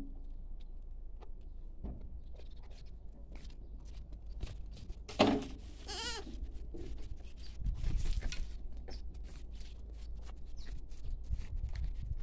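Goats bleating: one loud call about five seconds in, followed a second later by a second, wavering call, with scattered faint clicks around them.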